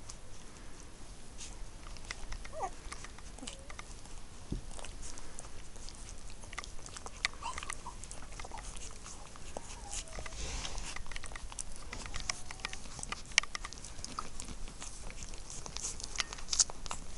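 Two-week-old lurcher puppies suckling at their mother's teats: a steady run of small wet clicks and smacks, with a couple of brief, faint squeaks.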